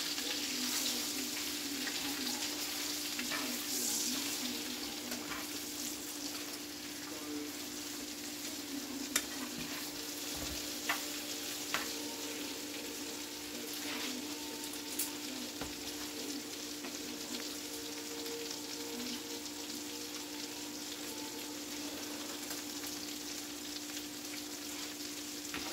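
Pieces of chicken breast sizzling steadily as they fry in a skillet, with a few sharp clicks of metal tongs against the pan as they are turned. A steady low hum runs underneath.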